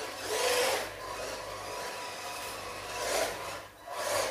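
Small brushed electric motor of a 1/16-scale RC monster truck whining, with its tyres scrubbing on a polished floor. The sound swells and fades as the throttle is worked, with a brief drop near the end.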